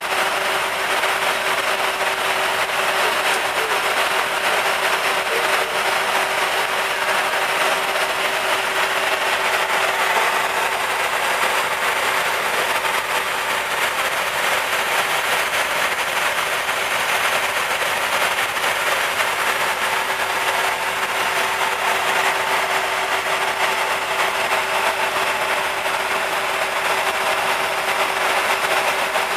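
Steady in-flight noise of a jet at high-altitude cruise: an even rush of airflow with a constant hum underneath.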